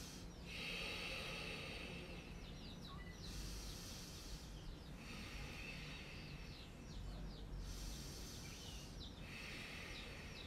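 Slow ujjayi breathing: long, hissing breaths in and out through the throat, each lasting a couple of seconds with short pauses between.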